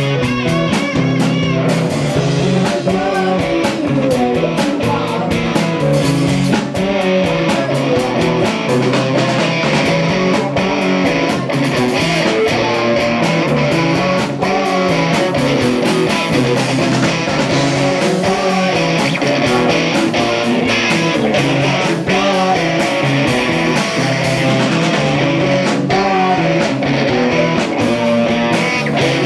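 Rock band playing live, with electric guitar over steady drums.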